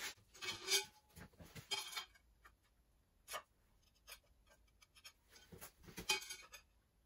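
A scatter of short clicks, knocks and scrapes as round plates are handled and set down on a bare concrete floor. The louder knocks come about a second in, near two seconds in and near the end.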